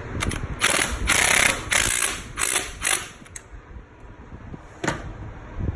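Hand ratchet wrench clicking in several quick strokes as the alternator's bottom mounting bolt is tightened snug, stopping about three seconds in. A single sharp click follows near the end.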